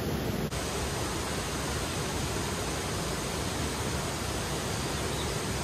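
Steady rush of a small stream or spring water flowing over rocks, with a brief dip about half a second in.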